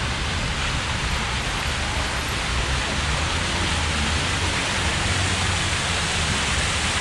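Fountain water pouring and splashing steadily.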